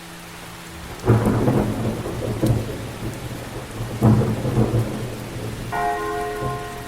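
Steady rain with two sudden thunderclaps rumbling about a second in and again about four seconds in; near the end a bell strikes and keeps ringing.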